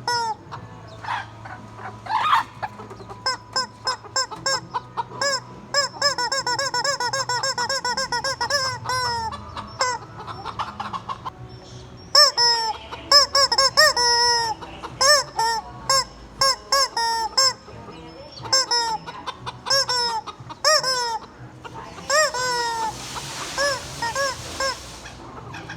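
Squeaky rubber chicken toy squeezed over and over in quick runs, each squeeze a short honking squawk that rises and falls in pitch. A long breathy hiss follows about 22 seconds in.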